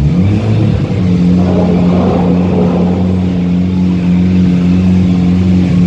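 Mitsubishi Lancer Evolution's turbocharged four-cylinder engine revved up through its aftermarket exhaust. The pitch climbs over the first second, then the revs are held steady.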